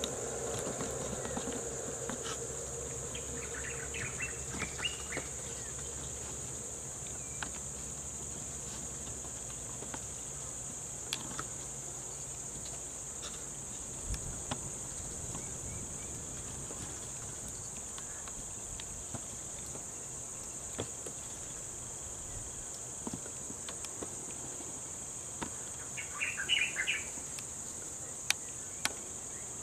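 Steady high-pitched insect drone from the forest, with brief clusters of chirping twice: a few seconds in and near the end.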